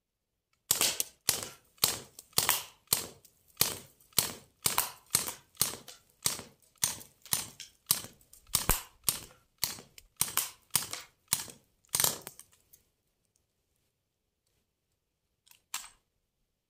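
CO2-powered BB gun fired in a steady string of about 25 shots, roughly two a second, each a sharp pop. The string stops about three quarters of the way through, and two faint clicks follow near the end.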